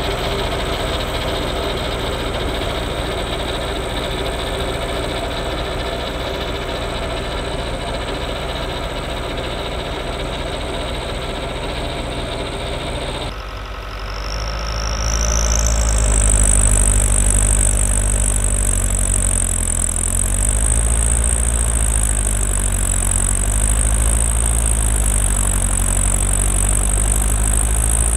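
New Holland L85 tractor's turbo-diesel engine running steadily under load while driving a PTO snowblower through wet, heavy snow. About halfway through it gets louder and deeper, a high whine rises and then holds steady, and the engine's pitch wavers up and down.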